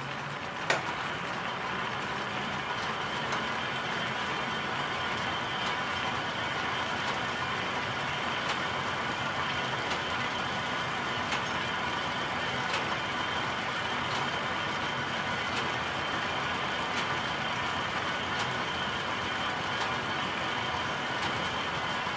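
Eclipse spindle frame running: rows of spindles and drive drums give a steady whirring hum with several constant high tones. A faint tick recurs about every one and a half seconds, and there is a sharp click about a second in.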